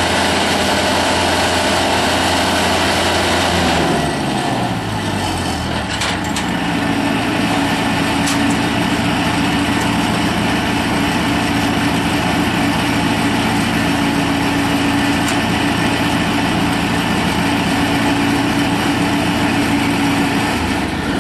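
2006 Bowie IBD-7 straw blower running loud and steady. Its engine pitch falls about four seconds in, and it then runs on steadily at the lower speed.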